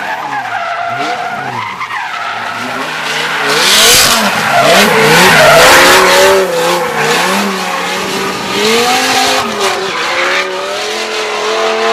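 Dodge Viper drift car's V10 engine revving up and down with the throttle while its rear tyres squeal through a sustained drift. It is loudest about four to six seconds in, as the car slides past close by.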